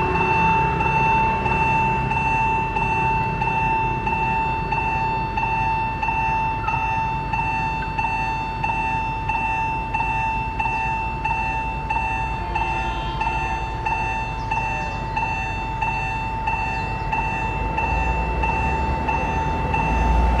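Railway level crossing warning bell ringing steadily at about two electronic dings a second. Near the end a low train rumble grows beneath it as a train approaches.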